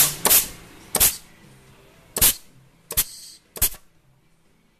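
Compressed-air blow gun with a rubber tip firing short blasts of shop air into a feed port on an 09G (TF60SN) automatic transmission case, air-checking the K2 clutch. About six sharp hisses come at uneven gaps, and the one near three seconds trails off in a longer hiss.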